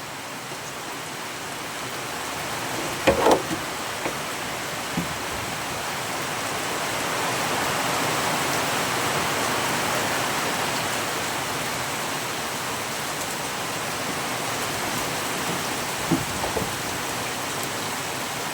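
Steady heavy rain hiss that swells a little midway, broken by a few short knocks and clanks.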